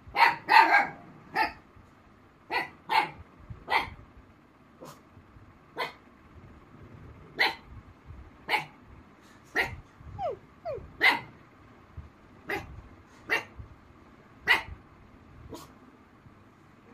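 Young black mouth cur barking repeatedly, single sharp barks about a second apart, with a quick, loud run of barks right at the start.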